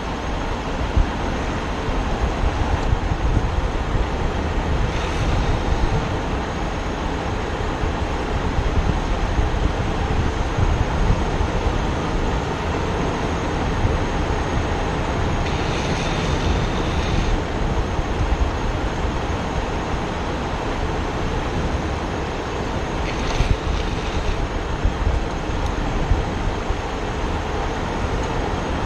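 Longboard urethane wheels rolling fast on rough asphalt under heavy wind noise on the microphone, a steady rushing roar. A brief higher hiss rises over it a few times.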